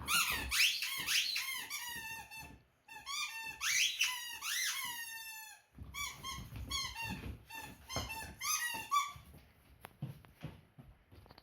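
Rubber squeaky toy squeaked over and over as a dog chews it: two long runs of rapid squeals sliding up and down in pitch, then a more even run of about three squeaks a second. About nine seconds in, the squeaking gives way to faint knocks.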